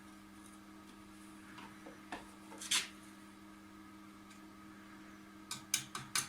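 A few sharp metallic clinks and knocks of metal pieces being handled, with a quick run of about five near the end, over a steady electrical hum.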